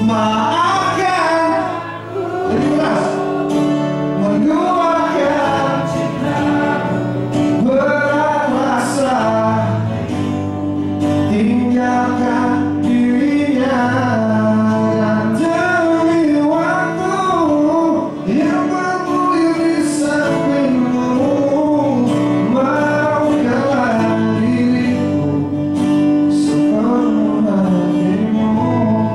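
A man singing a song live into a handheld microphone over amplified instrumental accompaniment, his voice carrying a slow, gliding melody over held backing chords.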